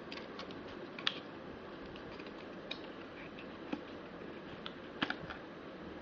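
Irregular light clicks and taps of small objects being handled over a steady hiss. The sharpest click comes about a second in, and a quick cluster of clicks comes near the end.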